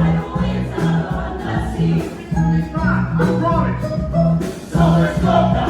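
Live band music with a short repeated bass figure, and a group of voices singing over it.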